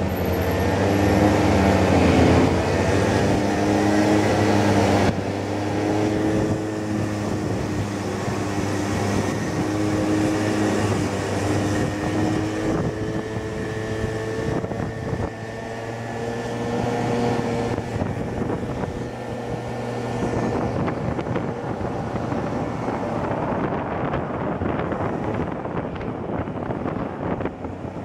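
Motor scooter's engine running under way, its pitch rising and falling with the throttle, with wind noise on the microphone throughout; in the last part the engine fades under the wind.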